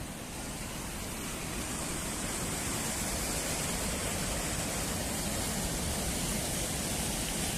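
Steady, even rushing noise with no distinct events, growing a little louder over the first two seconds and then holding level.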